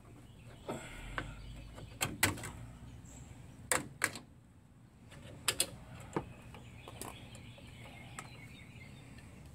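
Irregular sharp metal clinks and clacks as a drum brake is taken apart by hand: tools, brake shoes and springs knocking against the steel backing plate, loudest around two and four seconds in.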